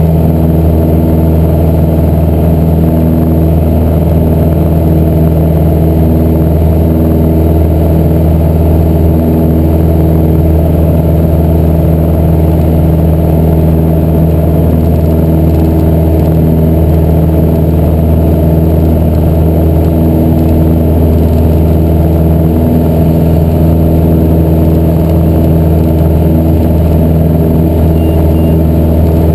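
Piper PA-28-181 Archer II's four-cylinder Lycoming O-360 engine and propeller running steadily at climb power, heard loud from inside the cockpit as an even, unbroken drone.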